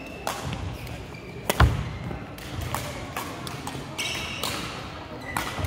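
A badminton rally: sharp smacks of rackets striking the shuttlecock, with footfalls and shoe squeaks on a wooden court floor. The loudest is a hard smack with a heavy thump about a second and a half in; a lunge near the end brings brief squeaks.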